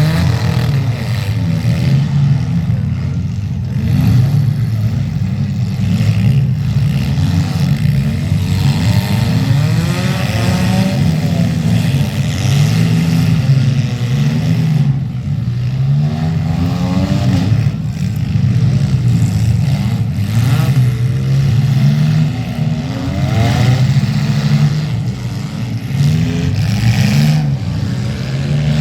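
Several demolition derby cars' engines revving and racing at once, their pitches rising and falling, with a sharp bang every few seconds, typical of cars hitting each other.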